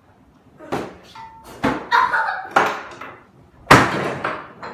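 Pillow-fight blows: a series of about six sharp thwacks and thumps as pillows are swung and strike, the loudest near the end.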